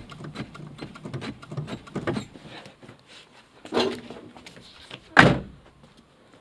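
Rapid clicking and small thuds as the clutch pedal is pumped hard. Then a thump, and a car's driver door shut with a single loud slam about five seconds in.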